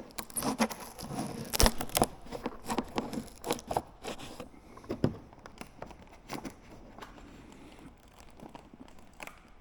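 Packaging tape crackling and tearing as it is peeled off a fiberglass aircraft part, in irregular bursts of crinkles and clicks that thin out and grow quieter about halfway through.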